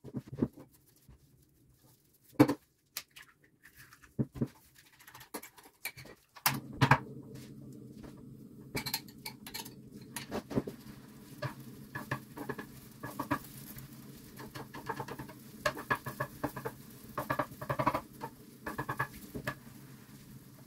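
Cooking sounds: sparse sharp taps and clinks of a bowl and utensils, then from about six seconds in an egg and shredded-vegetable mixture frying in an oiled pan, with frequent short clicks and taps of a spatula over a steady low hum.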